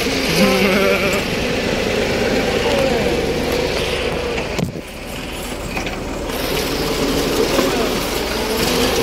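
Farm tractor's diesel engine running steadily while towing a spring-tine cultivator over tilled soil, with a brief drop in level about halfway through.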